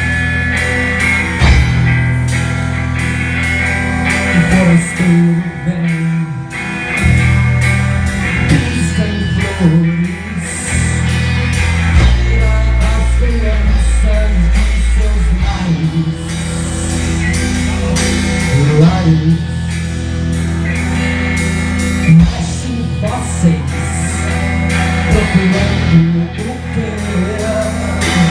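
A rock band playing live: drum kit keeping a steady beat under guitars and a heavy bass line.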